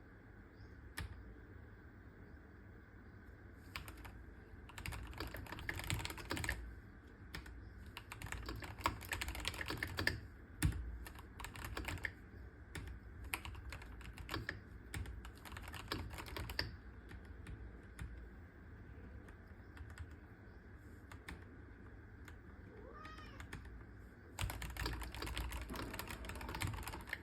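Keychron K4 Pro mechanical keyboard with K Pro Brown tactile switches being typed on in several bursts of keystrokes. Near the end come heavier, fuller presses, the spacebar's thock.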